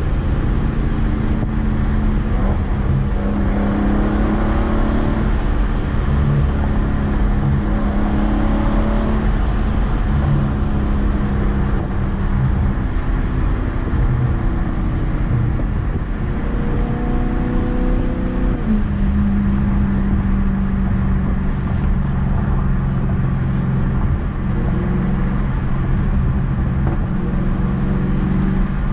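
Loud exhaust of a Dodge Charger 392's 6.4-litre HEMI V8, heard from inside the cabin while cruising: a steady low drone over road rumble, its pitch slowly climbing and then dropping sharply once, about two-thirds of the way through, as the gear changes.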